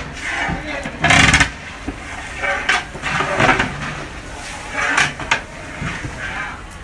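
A stirring paddle scraping and knocking against a large metal cooking pot as a big batch of food is stirred over a wood fire, in irregular strokes.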